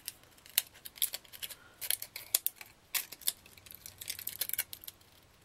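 Small scissors snipping the edges of a plastic water-bottle petal to round them off: a run of sharp, irregular clicks, coming quicker in the second half.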